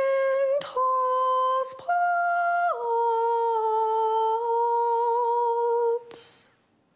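A woman singing long, wordless, chant-like held notes in a high, clear voice: a few steady notes, a step up, then a drop to a lower note held for about three seconds. A short breathy hiss follows near the end.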